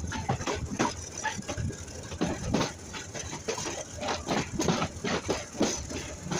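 Mahua Commuter train in motion: a rapid, uneven run of knocks and rattles from the wheels and carriages over a low rumble.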